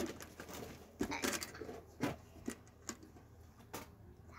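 Small objects being handled and set down, a scattering of light clicks and knocks with a quick cluster about a second in and single ones after.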